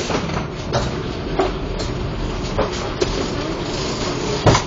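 Cabin noise inside a car of the SkyTrain suspended monorail: a steady hum with a few short knocks, the loudest near the end.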